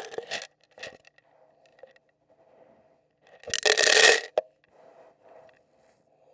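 Dried corn kernels thrown down for chickens, scattering with a gritty rattle: a short spray at the start, a smaller one about a second in, and the loudest, longest spray about three and a half seconds in, with fainter rustles between.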